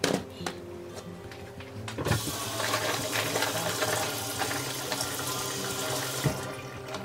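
Kitchen tap water running into a plastic colander of peeled garlic cloves and shallots as they are rinsed. The water comes on about two seconds in and stops shortly before the end.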